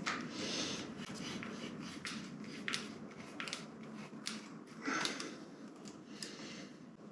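Hands working on motorcycle handlebar switch gear and wiring: a series of light clicks and knocks, about seven spread out, with the loudest about five seconds in, over soft rustling.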